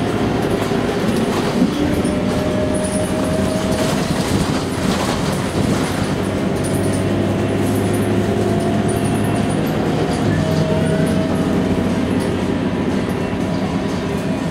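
Scania K230UB city bus heard from inside the cabin: the rear-mounted diesel engine and driveline running under way, the pitch climbing slowly as the bus gathers speed and dropping at a gear change about four seconds in and again about ten seconds in. A few knocks and rattles from the body come through over the running.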